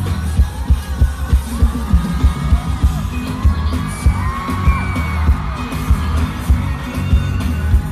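Pop dance track with a heavy bass beat, about two beats a second, played loud over a concert sound system and recorded from the audience, with singing over it.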